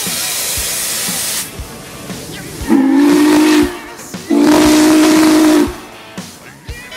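Norfolk & Western Class J 611 steam locomotive hissing steam, then sounding its steam whistle twice in a deep chord, the second blast a little longer: the two-blast signal that the train is about to move off.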